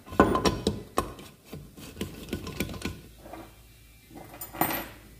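Gearbox gears and shafts being fitted into a motorcycle engine's crankcase, metal clicking and clinking against metal. A quick run of small knocks over the first three seconds, then a single clank near the end.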